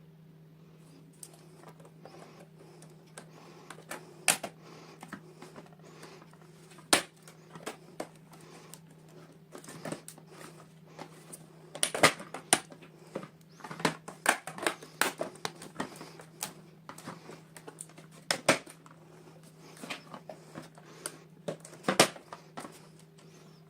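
Miniature toys and their plastic packaging being handled during unboxing: irregular clicks and taps, a few of them sharp and loud, over a steady low hum.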